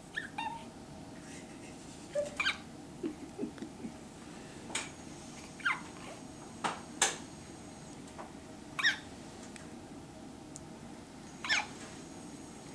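Newborn baby hiccuping: short, squeaky hiccups about every one to three seconds, some coming in quick pairs.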